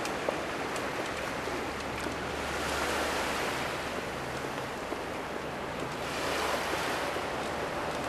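Small waves washing onto the beach, a steady rushing hiss that swells twice, over a low steady rumble.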